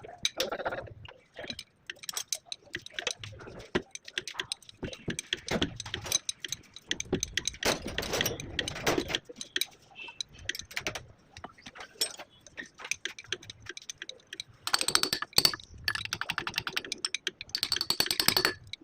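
Metal hand tools clicking and clinking against tractor hydraulic-lift parts, with two runs of rapid, even clicking near the end.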